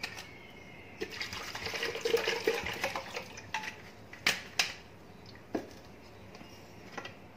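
Water poured and swished in a plastic blender jug to rinse out leftover falsa pulp, followed by a few sharp knocks of the plastic jug, the loudest two in quick succession about four seconds in.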